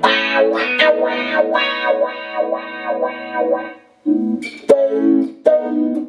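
Clean electric guitar (Fender Stratocaster) played through a Boss AW-3 Dynamic Wah and a Boss CE-5 Chorus Ensemble into a stereo pair of Roland JC-120 amps. A quick run of picked notes stops about four seconds in, then a few ringing chords follow, with sharp percussive pick strokes.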